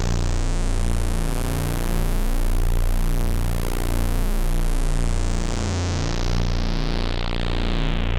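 GS-101 analog synthesizer holding one sustained low note from three slightly detuned oscillators, beating slowly against each other. The filter opens brighter over the first couple of seconds and closes down again from about halfway through.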